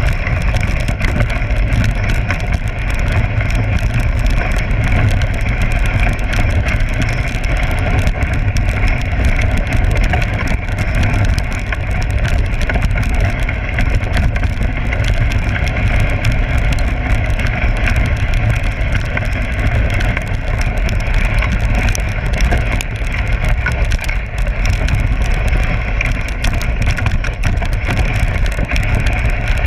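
Steady rushing noise of a dogsled gliding over packed snow, with wind buffeting the microphone.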